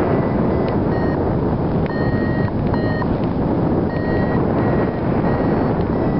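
Steady rush of airflow over the microphone of a paraglider in flight, with a variometer's short high beeps coming and going through it, the beeping that signals climbing in lift.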